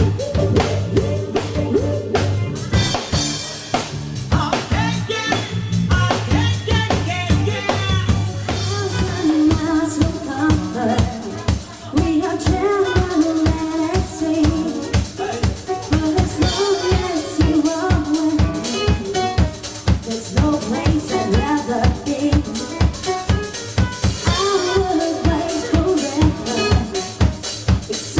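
Dance music with a steady drum-kit beat of kick and snare; a held low bass drops out about nine seconds in.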